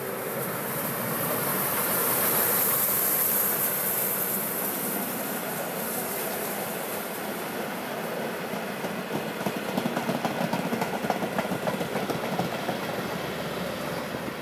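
Steam train passing close by: the 1907 SJ E2 steam locomotive goes by with a hiss of steam, loudest a few seconds in. Then its passenger coaches roll past, the wheels clicking over the rail joints.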